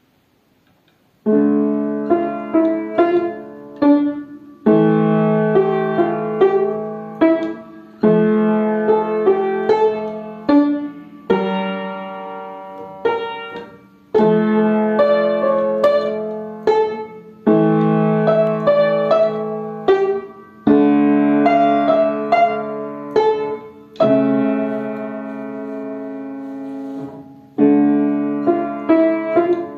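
Upright piano played with both hands, starting about a second in: a slow tune in phrases of about three seconds, each opening on a low chord and fading before the next one begins.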